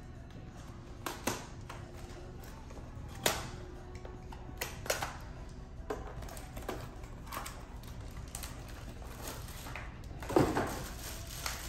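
Cardboard and plastic packaging being handled while a small product box is opened: scattered clicks and taps, the loudest about ten seconds in, followed by a short rustle as a bagged part is pulled out.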